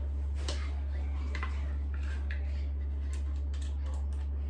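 Scattered clicks and light metallic clinks of desk parts and screws being handled during flat-pack assembly, coming more quickly near the end, over a steady low hum.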